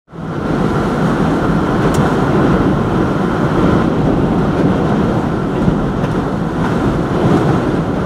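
Storm-force wind buffeting the microphone: a loud, steady, deep rush of wind noise that comes in abruptly at the start and holds level.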